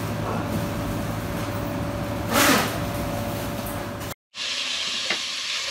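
Steady electric machine hum in a butcher's shop, with a short hiss about two and a half seconds in. After an abrupt cut near the end, minced meat sizzling as it fries in a pot.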